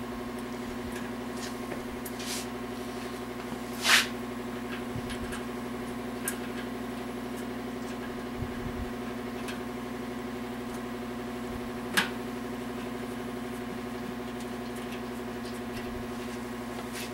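Steady electrical hum from a shop machine, with two sharp knocks about four and twelve seconds in and a few lighter clicks from parts being handled on an engine block.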